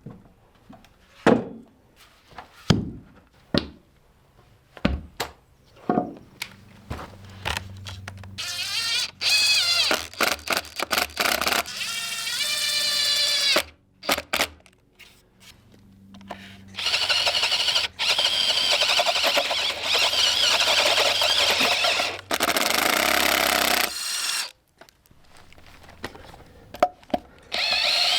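A string of knocks and thuds, then an electric drill boring into oak with a 16 mm auger bit: the motor whine rises in pitch, then settles into long stretches of steady drilling.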